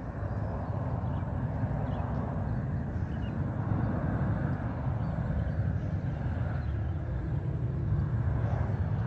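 Jet engine noise from a Boeing 737-800's CFM56-7B engines at approach power on final approach. It is a steady low rumble that grows gradually louder as the airliner comes nearer.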